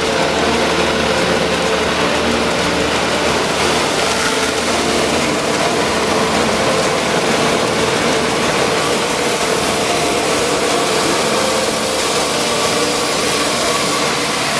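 6FW-PC2 electric corn mill running with a steady, loud machine noise and hum.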